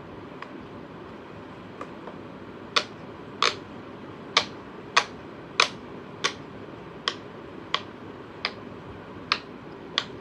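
A round silicone pop-it fidget toy being pressed bubble by bubble: a few faint pops, then about a dozen sharp pops roughly two thirds of a second apart.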